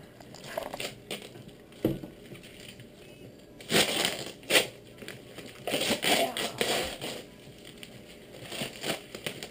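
Wrapping paper and duct tape being torn and crumpled off a present, in irregular rasping bursts.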